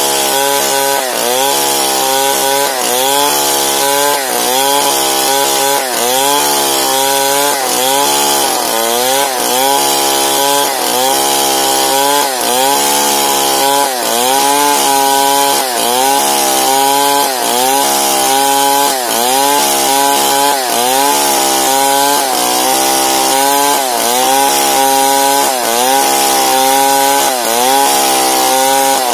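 STIHL 070, a big two-stroke chainsaw, running at full throttle while ripping lengthwise along the grain of a large log. The engine pitch sags under load and recovers in a steady rhythm, a bit more than once a second, over the hiss of the chain cutting.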